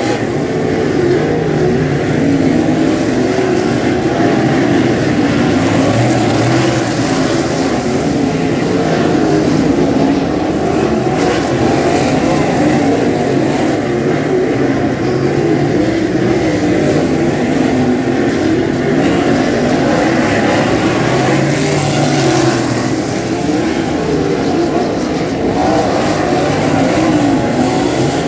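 A field of 360 sprint cars' V8 engines running laps on a dirt oval, several engines at once, their pitch rising and falling as the cars accelerate and lift.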